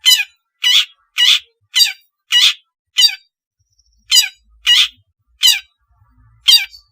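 Long-tailed shrike giving a series of about ten harsh, rasping calls, roughly one every half second, with a longer pause a little past the middle.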